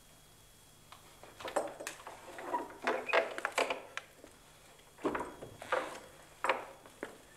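Footsteps knocking and thudding on wooden steps and boards as a man climbs, in irregular heavy strokes: a dense run in the first half, then single steps about every second.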